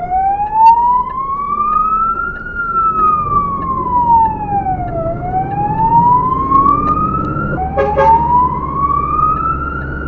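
Fire engine's siren on a slow wail, rising and falling about every five seconds, heard from inside the cab over the truck's engine running. Near the end the wail jumps back to its low pitch and starts rising again, with a brief sharp knock at the same moment.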